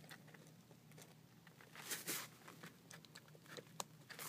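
Faint handling noises: scattered small clicks and a brief rustle about two seconds in, over a faint low hum.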